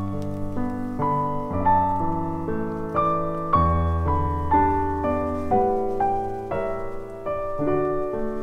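Background piano music: a melody of single notes, a new one about every half second, over longer-held bass notes.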